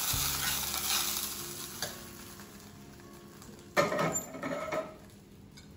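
Hot spiced oil tempering (cumin, mustard seeds, chillies) poured from a small tadka pan onto cooked vermicelli, sizzling and fading over the first two seconds. About four seconds in, a spoon clinks and scrapes in a steel pot as the mixture is stirred.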